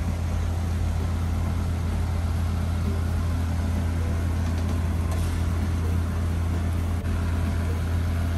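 Mud jacking rig's engine running steadily with a low hum, over rain falling on the wet concrete.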